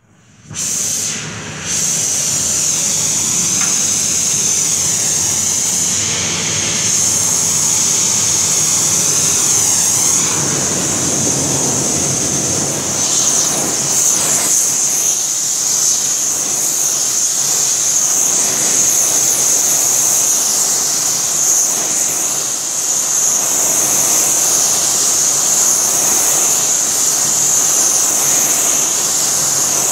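Oxy-fuel torch flame hissing steadily as it heats a V-shaped spot on an angle bar. The hiss comes up suddenly at the very start, dips briefly about a second and a half in, then holds steady and loud.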